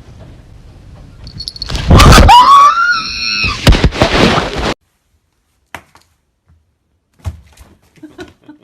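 A sudden loud commotion, heavy thumps with a cry that rises and then falls, cut off abruptly after about three seconds. A few faint knocks follow near the end.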